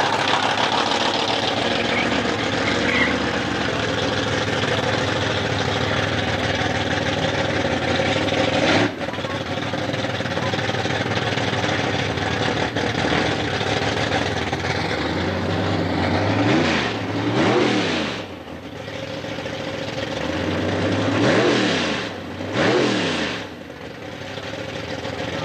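A drag car's engine runs at a rough, lumpy idle, then is blipped several times in the second half, the revs jumping up and dropping back each time.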